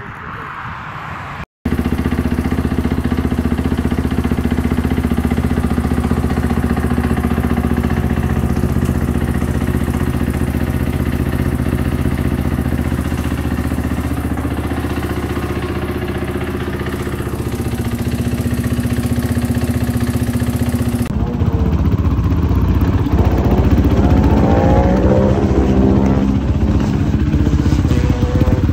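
Motorcycle engine running steadily at idle for most of the time. After a cut near the end, a motorcycle is revved several times, louder, its pitch rising and falling.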